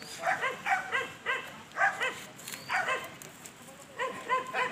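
A dog barking: short, high yaps repeated in quick groups of two or three.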